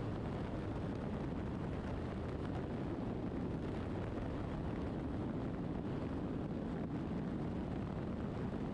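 Steady rush of wind and road noise from a BMW R1200RT motorcycle riding at highway speed in strong gusty wind, buffeting the microphone.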